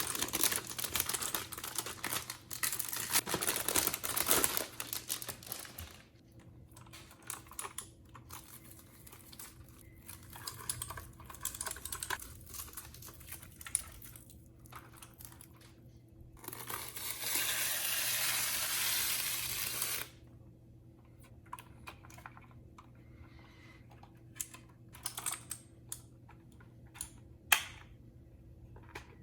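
Packaging being unwrapped and handled: dense plastic crinkling for the first several seconds, then scattered rustles and small taps. About two-thirds of the way in comes a steady rasping rustle lasting a few seconds, like a plastic bag or film being pulled. Sparse light clicks and knocks follow near the end.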